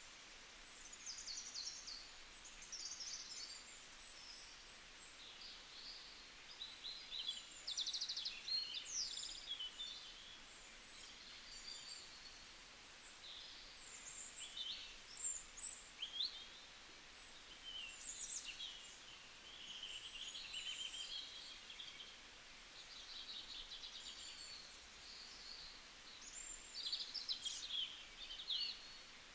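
Small songbirds chirping and trilling, many short high calls overlapping in quick succession, over a faint steady hiss of forest ambience.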